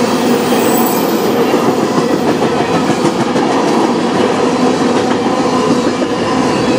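Freight cars of a manifest train rolling past at speed, mostly covered hoppers: a loud, steady rumble of steel wheels on the rails.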